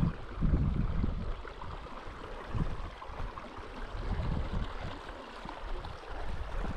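A small stream running steadily, with wind buffeting the microphone in irregular gusts.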